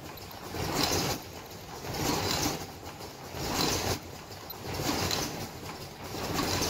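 Automatic disposable flat face-mask making machine with earloop welding units, running in production and cycling rhythmically: a surge of hissing machine noise about every one and a half seconds, five times, over a steady mechanical background.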